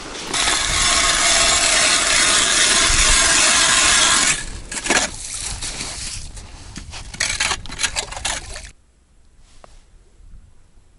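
Hand ice auger drilling through thin first ice: a steady grinding scrape for about four seconds, then irregular scraping and knocks as ice chips are cleared from the hole, dropping away suddenly about nine seconds in.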